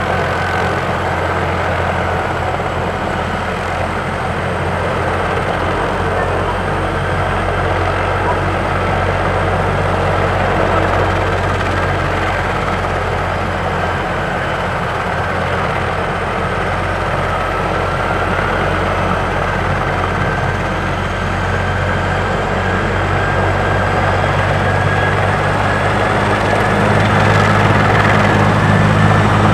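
Bell 412 helicopter running on the ground, its twin turboshaft engines and four-blade rotor giving a steady drone. A faint whine rises slowly through the second half, and the rotor grows louder near the end as it spools up for take-off.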